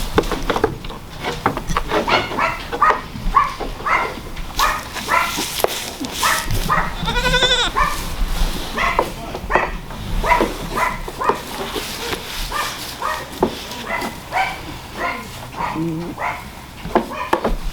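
Pygmy goats bleating over and over in a string of short calls, with one longer, wavering bleat about seven and a half seconds in.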